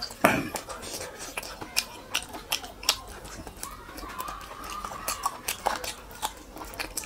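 Close-miked chewing and biting on a bone-in piece of chicken: many wet mouth smacks and sharp clicks, the loudest a smack just after the start.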